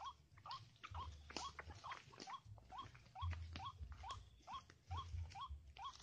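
White-breasted waterhen calling: a short rising note repeated steadily, a little over twice a second.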